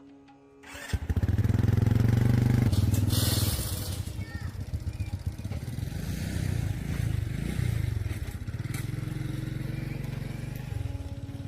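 A motor running with a low, fast-pulsing buzz, starting about a second in and loudest for the next couple of seconds before settling a little lower.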